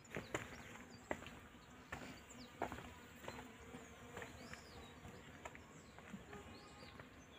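Faint buzz of a flying insect around the flowers, with soft footsteps on a stone path about every second early on and a few brief high bird chirps.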